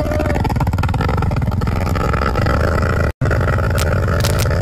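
Dirt bike engine running hard under load as it climbs a steep, rutted dirt trail, the rear tyre spinning and throwing up loose soil. The sound drops out completely for a moment about three seconds in.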